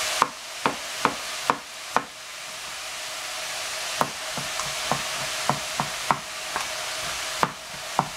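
Food sizzling in a frying pan, a steady hiss that drops back about two seconds in and slowly builds again. Over it, a series of sharp knocks, a few a second at irregular spacing.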